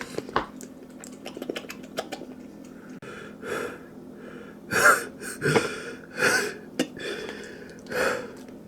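A man gasping and breathing hard through a mouth burning from chili, a run of sharp, noisy breaths that grow louder over the last few seconds. A few light clicks come first.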